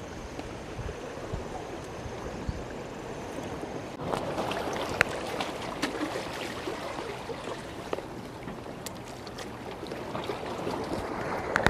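Small waves lapping and sloshing against shoreline rocks, louder from about four seconds in, with a few sharp clicks of handling.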